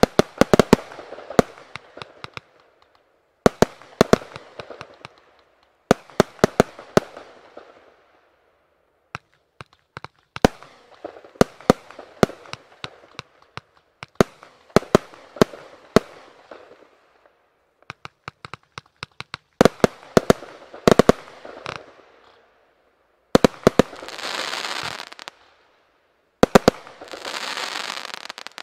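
Riakeo Excalibur fireworks compound firing in volleys: clusters of sharp shots every couple of seconds, each followed by sputtering crackle from the bursting stars. Near the end come two longer stretches of dense crackling.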